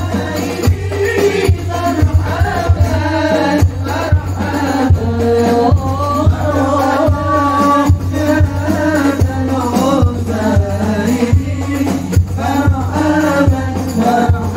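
A group of men singing sholawat, Islamic devotional praise songs, together into microphones through a PA system, with a regular hand-drum beat under the voices.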